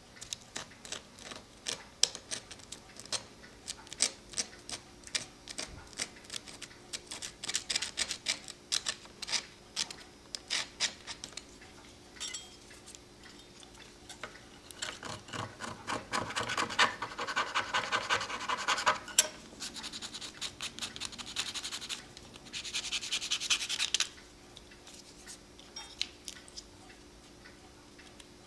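A knife blade scraping a cuckoo clock bellows part clean, in quick repeated strokes, with two denser runs of steady scraping about halfway through and again near the end.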